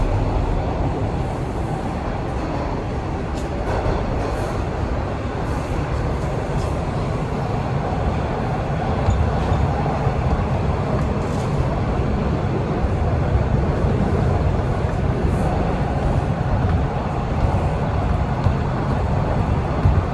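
TTC Line 1 Toronto Rocket subway train running between stations, heard from inside the car: a steady rumble of wheels and motors with a few faint clicks.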